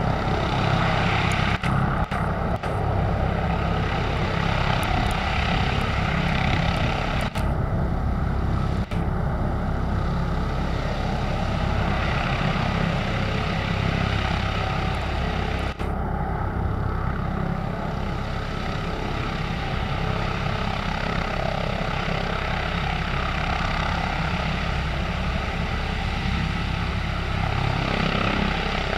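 Airbus H145 D3 helicopter hovering low, its five-blade main rotor, fenestron tail rotor and twin turboshaft engines running with a steady, loud, deep noise.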